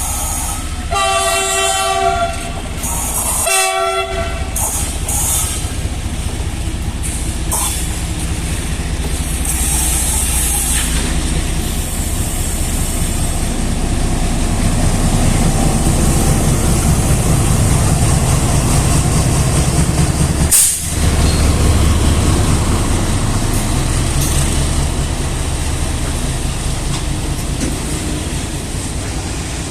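WDG4G diesel locomotive sounding its horn twice in the first few seconds, then the goods train rumbling past, its wagon wheels running steadily over the rails and growing louder towards the middle.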